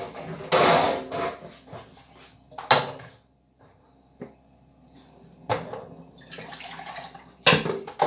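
Chicken broth being strained: liquid pouring and splashing through a strainer in two stretches, with two sharp clinks of kitchenware, one about three seconds in and a louder one near the end.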